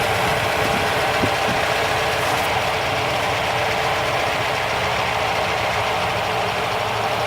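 A 1973 Rover P6 3500S's V8 engine idling steadily, its revs dropped down after the carburettor idle screws were turned down from a fast idle of about 1,000 rpm.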